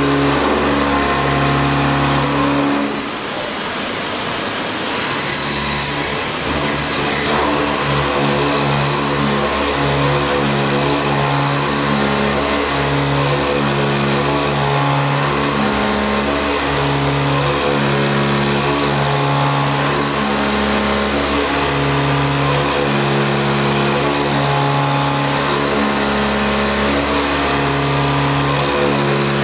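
Milling head of a Parpas THS100X machining centre (TMT50 head) cutting a pocket into a metal block: a steady machining drone whose low tones come and go every second or two as the cutter moves through the cut. A rushing hiss rises between about three and seven seconds in.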